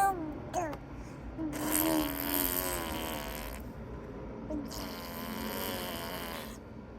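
A baby blowing raspberries, spitting with buzzing lips in two long bursts of about two seconds each, the way he signals that he wants more food. A short baby vocal sound comes right at the start.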